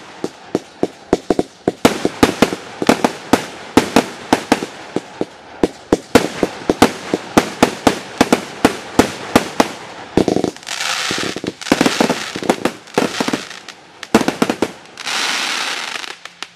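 Firework cake firing a rapid volley of shots, sharp bangs several a second. In the second half, two longer stretches of dense hissing noise come among the bangs, and the volley stops at the end.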